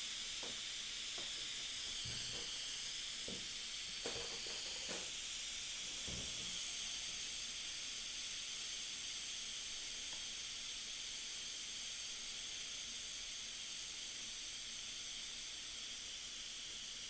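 Instant Pot electric pressure cooker venting steam through its pressure-release valve during a quick release: a steady, high hiss that eases very slightly over time.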